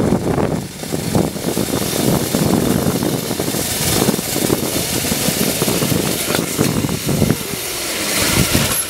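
Wind rushing and buffeting the microphone during a fast ride down a zip line, with the trolley running along the steel cable. A steady high hiss builds from about four seconds in.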